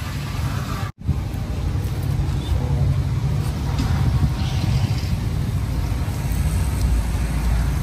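Steady low rumble of outdoor background noise, cut by a brief dropout about a second in.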